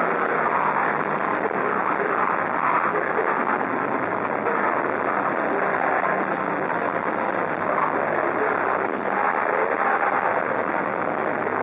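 Metal band playing live: distorted electric guitars, bass and drums blurred into one dense, overloaded wash, with cymbal hits pulsing through the top.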